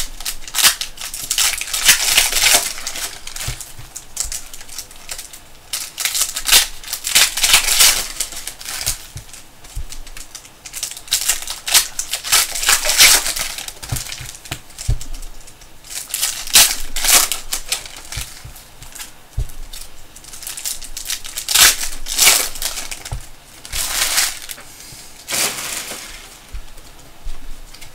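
Trading-card pack wrappers crinkling and tearing as packs are opened and handled, in repeated bursts a few seconds apart.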